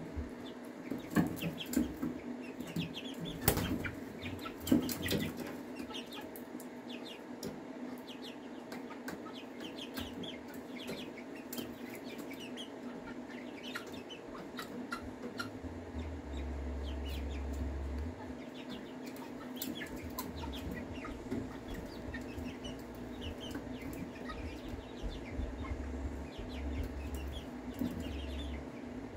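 Young chickens, about eight weeks old, peeping and clucking softly with wing flaps. A few sharp knocks in the first five seconds, likely their feet landing on the galvanized steel rim of the brooder tank.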